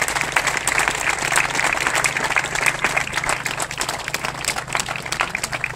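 Outdoor crowd applauding, a dense patter of many hands clapping that thins out slightly toward the end.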